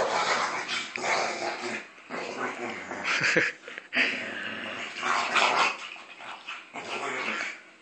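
Two dogs play-fighting, growling in rough bursts of about a second each, four or five times.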